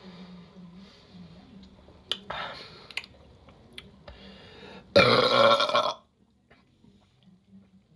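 A woman burps loudly, one long belch lasting about a second, about five seconds in. A shorter, quieter sound comes a couple of seconds before it.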